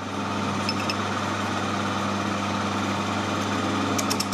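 Steady machine-motor hum, with a few light metal clicks near the end as a steel bar is slid into the lathe's collet chuck.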